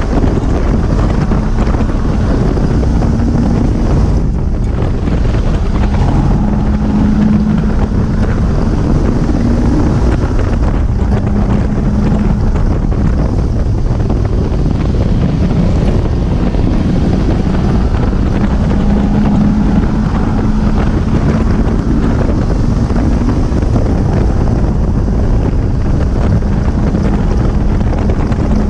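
Lotus Elise 111S's 1.8 Rover K-series VVC four-cylinder engine running hard at high speed on track, with heavy wind noise on the microphone. The engine note drops and picks up again several times through the lap.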